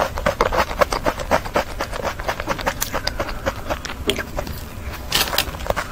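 Close-miked chewing of soft chocolate cake: quick, wet mouth clicks and smacks with a brief louder rustle about five seconds in.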